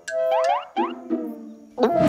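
Cartoon music and sound effects: a run of quick rising, springy boing-like tones over held notes, then a short noisy burst near the end.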